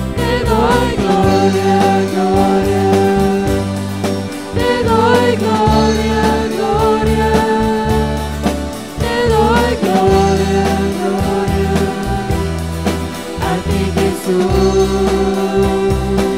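Christian song: singing voices with vibrato over sustained instrumental backing and a bass line that steps from note to note about once a second.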